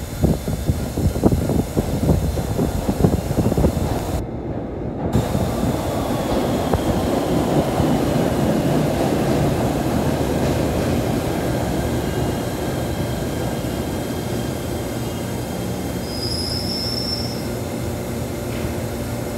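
PATH PA-5 subway train running in an underground station: heavy wheel rumble and clatter at first, settling into a steadier rumble that slowly eases. A faint falling whine runs under it, and a brief high wheel squeal comes near the end.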